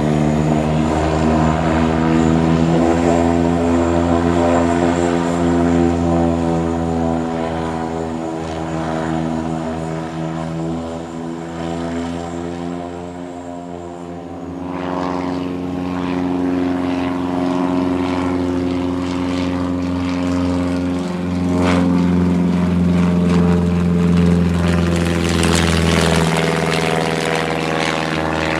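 Piston-engined propeller aircraft running with a steady engine note. It fades somewhat around the middle, then grows louder again in the second half.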